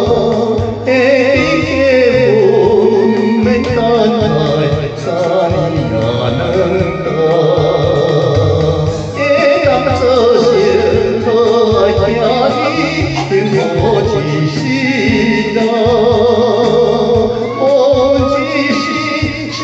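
Music from a Taiwanese Hokkien song: a wavering melody line with vibrato over a steady, rhythmic bass accompaniment.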